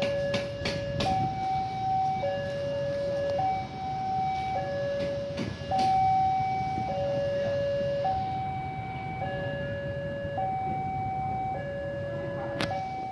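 Railway level-crossing warning alarm sounding, a two-note electronic tone switching between a high and a low note about once a second, warning of an approaching train. A few sharp clicks come early on and once more near the end.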